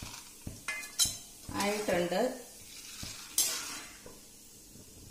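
Perforated steel skimmer clinking and scraping against an aluminium kadai while lifting fried split chickpeas out of hot, sizzling oil. A few sharp clinks in the first second, then a louder clatter and sizzle about three and a half seconds in, after which only a low frying hiss remains.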